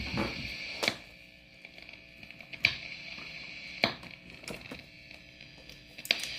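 Unwanted noise from a Line 6 HX One effects pedal: a steady high hiss with five sharp clicks scattered through it, the noise problem the owner is showing.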